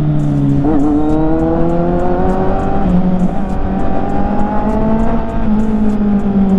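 Kawasaki inline-four motorcycle engine running under the rider, heard close. Its note dips briefly, then climbs steadily for several seconds as it pulls through a gear, and falls away again near the end as the throttle eases.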